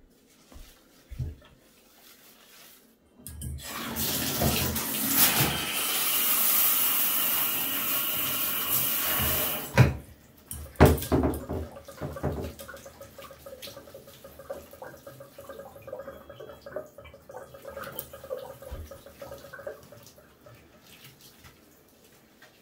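Water running hard into a bathtub from about 3 seconds in until nearly 10 seconds, where it stops with a couple of sharp knocks; then quieter wet splashing and rubbing as wet dogs are handled in the tub.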